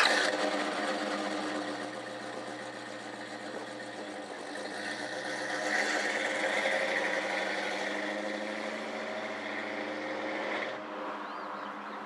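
A classic Dodge car's engine and exhaust rumbling as it pulls away and drives off down the street, swelling as it accelerates and then fading with distance before cutting off suddenly about a second before the end.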